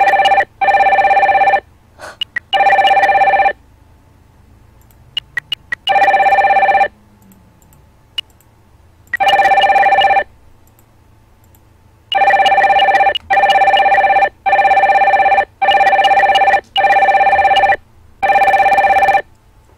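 Telephone ringing loudly with a steady electronic ring in pulses of about a second, about a dozen rings with uneven gaps and a closely spaced run near the end: an incoming call. A few faint clicks sound in one of the longer gaps.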